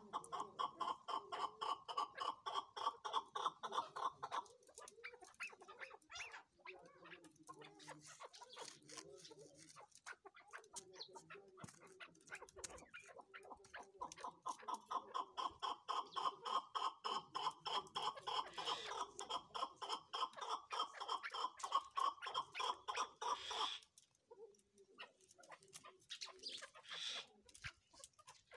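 Chukar partridges calling: long runs of rapid, evenly repeated chuck notes, about four or five a second. One run stops about four seconds in, and a second runs from about twelve to twenty-four seconds in. Softer calls come between them, with a short call near the end.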